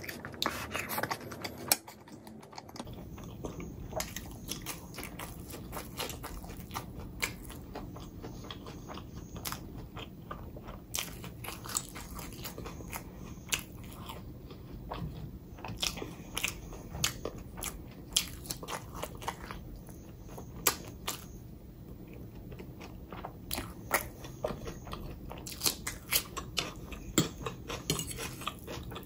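A person chewing and biting food close to the microphone: many sharp, irregular wet mouth clicks and crunchy bites.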